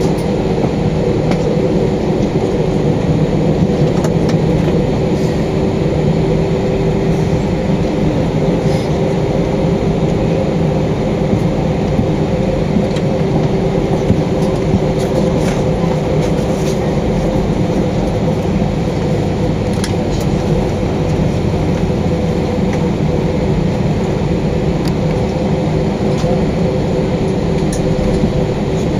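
Airbus A320 cabin noise while the airliner taxis: a steady rumble of the jet engines at idle with a steady two-note hum, and a few faint knocks.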